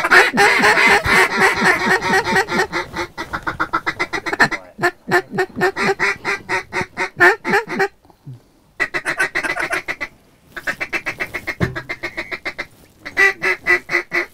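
Mallard duck calls blown in long runs of rapid quacking notes, several a second, a feed-chatter style of calling, breaking off briefly about eight and again about ten seconds in.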